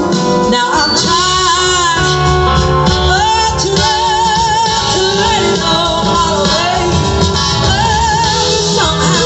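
Live band playing a blues-rock jam with singing and held, wavering melody lines over a full band, heard from far back in a large hall.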